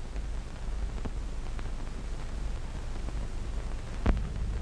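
Steady hiss and low hum of an early-1930s film soundtrack, with a few faint clicks and one sharper click about four seconds in.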